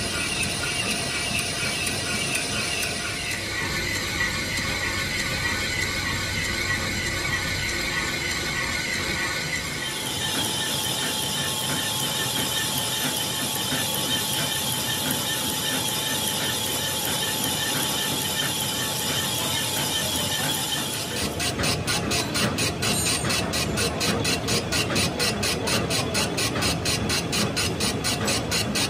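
Metal lathe turning a large compressor piston, the tool bit cutting along its surface with a steady mechanical running sound. From about two-thirds of the way through it becomes a fast, even knocking, as the tool takes an interrupted cut across the openings in the piston's side.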